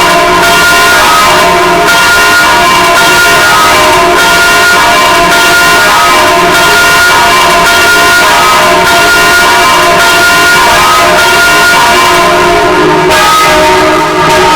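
Church bells swinging and ringing together in a full peal, their strikes overlapping into a steady, loud, dense sound.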